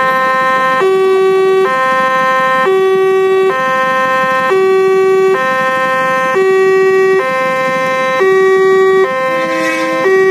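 Railway level-crossing alarm sounding its low-pitched two-tone warning, switching between a higher and a lower tone about once a second; the crossing is working normally with a train due. Near the end the pattern briefly breaks as a slightly lower tone sounds.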